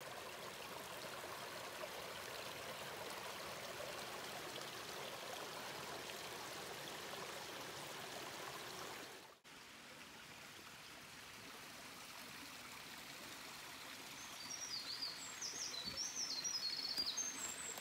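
Small forest stream trickling over rocks, a steady rushing that cuts off suddenly about halfway through, leaving a faint background hiss. Over the last few seconds a songbird sings quick, high chirping phrases.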